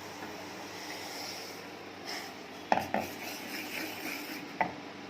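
Metal cooking pot being taken off the stove and set down: a few clinks and knocks, the loudest a little under three seconds in, over a steady low hiss.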